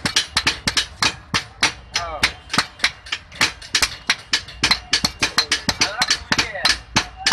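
Two blacksmiths' hammers striking a red-hot boti (chopper knife) blade on a small anvil in turn, an even rhythm of about four sharp metal-on-metal blows a second as the hot steel is forged.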